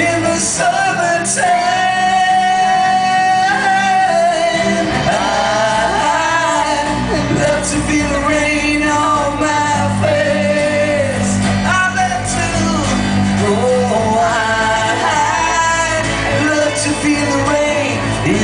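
Live rock band playing: strummed acoustic guitars and drums under a sung lead line with long held notes.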